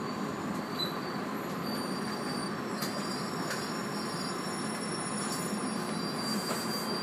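Inside a JR 115-series electric train slowing along a station platform: the steady rumble of the car's running gear, with a thin high brake or wheel squeal coming and going.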